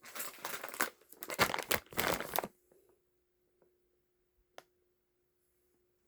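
Stainless steel knife blade scraped against a sharpener in a quick run of rasping strokes, grouped in three bursts over about two and a half seconds, then a single sharp click about four and a half seconds in.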